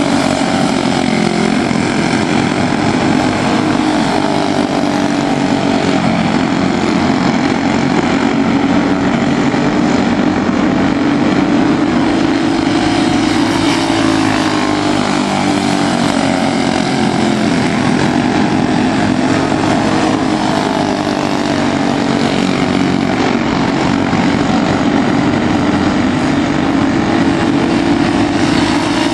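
Several quarter midget race cars' small single-cylinder engines buzzing together in a continuous drone. Their pitch rises and falls as the cars lap the oval.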